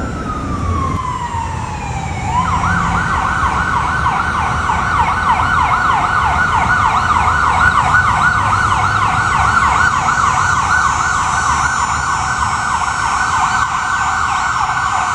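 Emergency vehicle siren: a wail that falls in pitch over the first two seconds, then switches to a rapid yelp of quick rising sweeps repeated without a break.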